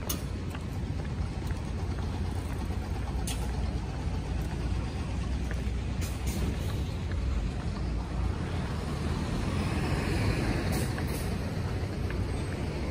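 City street traffic noise: a steady low rumble of road vehicles, with one vehicle swelling past about eight to eleven seconds in. A few short sharp clicks sound over it.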